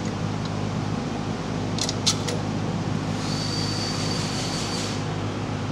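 A steady low machine hum runs throughout. A few light metal clicks come about two seconds in as the lever handle's washer and bolt are fitted to the bracket, and a thin high whine with a hiss follows from about three to five seconds.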